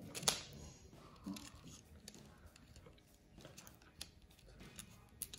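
Faint handling of small plastic keychain parts: a few light clicks, the loudest just after the start, with soft rubbing between them.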